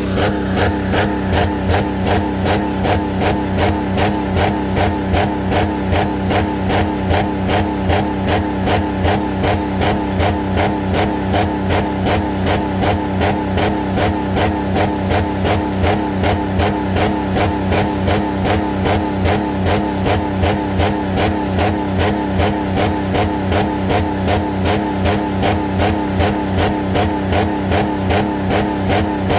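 Jeep Commander engine running with water in place of its oil, pulsing unevenly in a steady rhythm about twice a second, the sound of an engine running rough as it is starved of lubrication.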